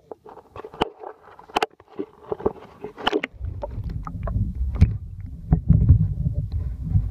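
Water splashing and knocking on an action camera's housing as it is dipped over the side of a kayak, then, about three seconds in, the muffled low rumble and thuds of water heard through the camera's microphone underwater.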